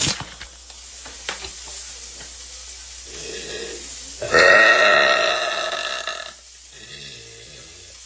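A woman's long, loud burp starting about four seconds in and lasting about two seconds, after a stretch of faint clicking and crackling. A fainter, shorter pitched sound follows it.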